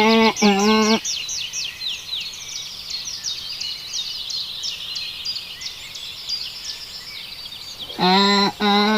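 Animal calls: a loud run of short, evenly repeated notes, each held at one pitch, gives way after about a second to several seconds of dense, quick, high chirping with falling notes. The repeated calls return near the end.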